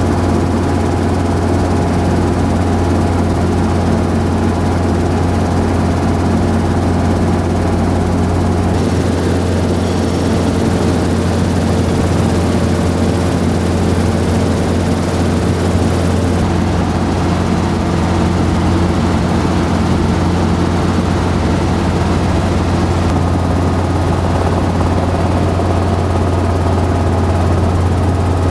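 Helicopter in flight, heard from on board: a steady, loud drone with a strong low hum and several constant tones above it.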